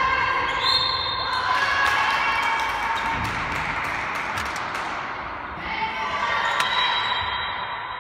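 Handball being played on an indoor court: the ball bouncing and slapping against the floor and hands in a series of sharp knocks, with players' voices calling out over the reverberant hall.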